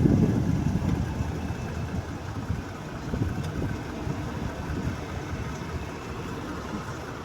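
A 2022 Jeep Grand Cherokee's engine idling steadily with the air conditioning running while its refrigerant is being recharged, a low rumble that is louder for the first second and then settles.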